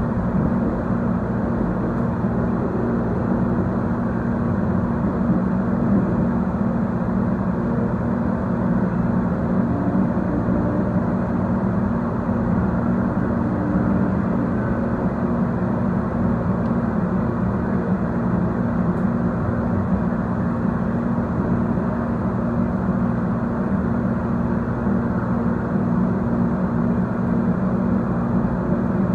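Running noise of a moving Siemens S70 light rail car of the Tide, heard from inside the car: a steady low rumble with no breaks.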